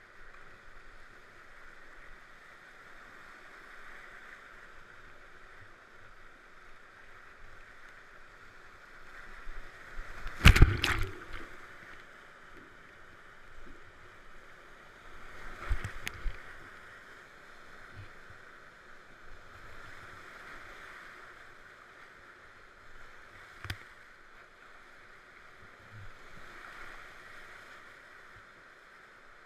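Whitewater rapid rushing steadily around a kayak, with a loud splashing thump about ten seconds in, a smaller one around sixteen seconds, and a single sharp tap later on.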